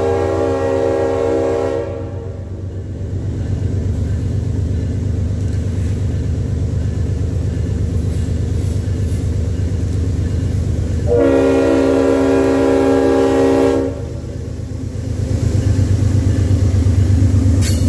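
Approaching CSX diesel freight locomotive sounding its multi-chime air horn twice: one blast that ends about two seconds in, then a longer blast of nearly three seconds about eleven seconds in. Under the horn the locomotive's diesel engines drone low and grow louder as the train draws near and passes.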